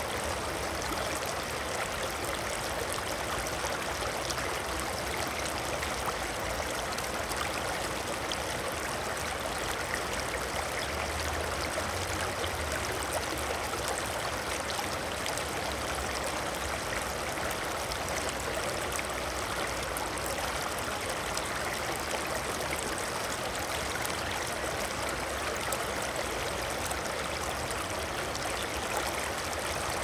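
Water flowing steadily in a continuous, even rush and splash like a stream. A faint low rumble swells underneath about a third of the way in.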